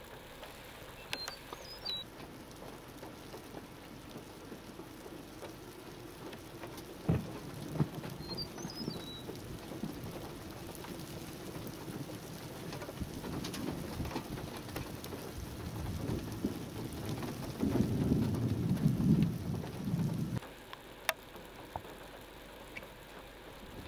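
Thunderstorm ambience: steady rain with a low rumble beneath it, and a few short bird chirps. The low rumble grows louder over several seconds near the end and then stops abruptly, with a couple of sharp clicks.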